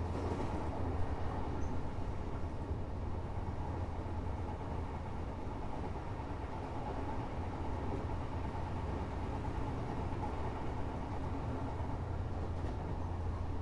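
Running noise of an Odakyu 8000 series electric train motor car, heard from on board: a steady low rumble of wheels and car body on the rails. There is no rising or falling motor whine.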